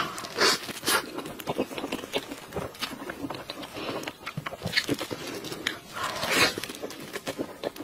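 Close-miked wet chewing and lip-smacking as a soft mochi cream cake is bitten and eaten, with many small sticky clicks and a few louder, longer wet mouth noises.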